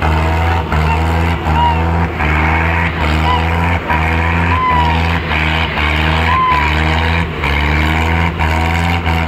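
Diesel farm tractor engine running hard and labouring under a heavy pulling load, a loud steady drone throughout. A few short whistles from spectators sound over it.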